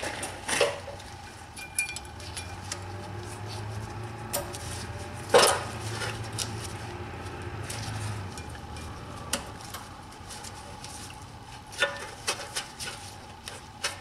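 Thin metal brake pad clips clicking and clinking against the steel caliper bracket of a BMW 5 Series F10 rear brake as they are pressed into place. The clicks are scattered and sharp, the loudest about five seconds in and a quick run of them near the end, over a faint low hum.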